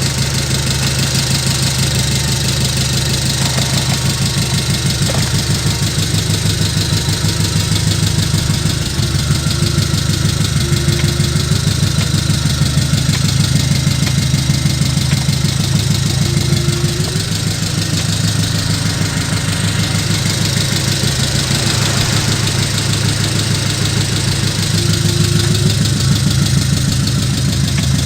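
Diesel truck engine sound idling steadily from an RC model dump truck, a fast, even knocking pulse, with a few short, faint rising whines.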